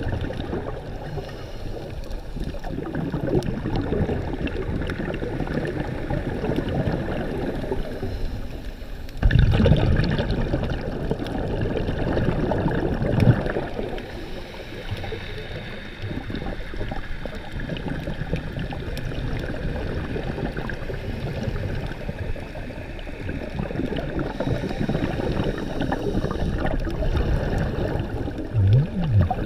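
Water gurgling and sloshing against the microphone, a steady noise, with a sudden louder surge about nine seconds in and another brief swell a few seconds later.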